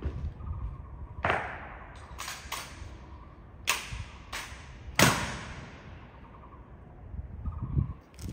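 Sharp cracks and knocks of an honor guard's rifle drill and heel stamps, six in all, each followed by a ringing echo, the loudest about five seconds in.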